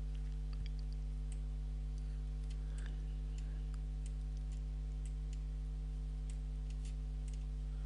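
Steady low electrical hum with faint, scattered clicks of a computer mouse as an image clip is resized in the video editor's timeline.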